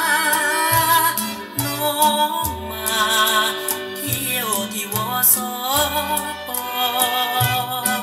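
A song with a sung melody playing through a pair of Victor S-D11 three-way speakers with 8-inch woofers, the bass notes sounding in short repeated strokes under the voice.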